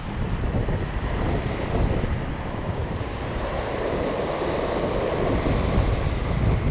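Small sea waves breaking and washing up a pebble beach, with wind buffeting the microphone. A wave's wash swells louder about halfway through.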